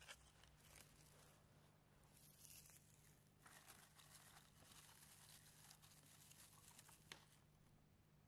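Faint dry rustling and crinkling of dried herbs being picked through by hand, with a single small click about seven seconds in.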